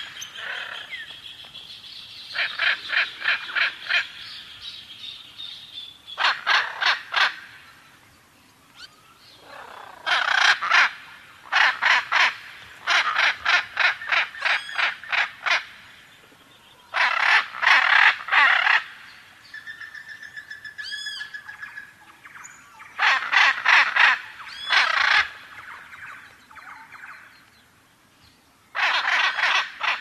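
Macaw calling in repeated bursts of harsh, rapid squawks, each burst a second or two long with short pauses between them.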